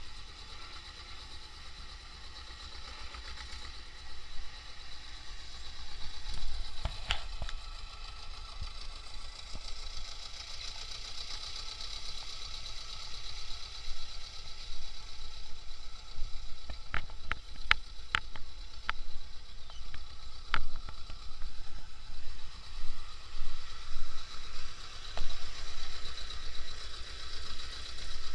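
T-25 tractor's two-cylinder air-cooled diesel engine running steadily, growing gradually louder, with a few sharp clicks a little past the middle.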